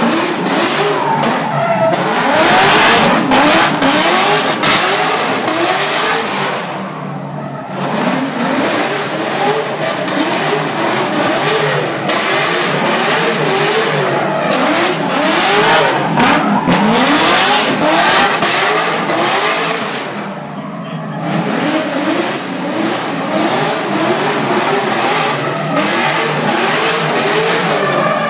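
Holden VE Commodore V8 on an XForce performance exhaust, revving up and down over and over as it drifts in circles, with its rear tyres spinning and squealing. The revs drop away briefly about seven seconds in and again about twenty seconds in.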